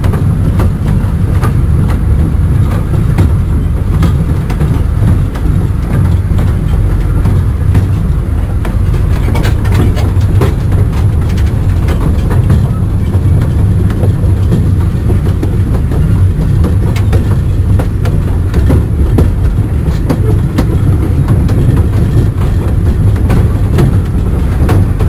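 Taipingshan Bong-Bong narrow-gauge mountain train running, heard from aboard: a steady low rumble with frequent irregular clicks and knocks from the wheels on the track.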